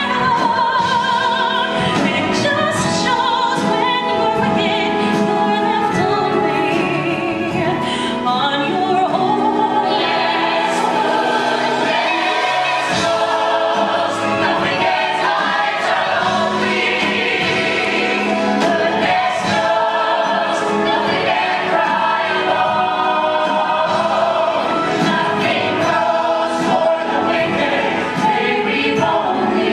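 Musical-theatre ensemble singing full-voiced in chorus with a pit orchestra.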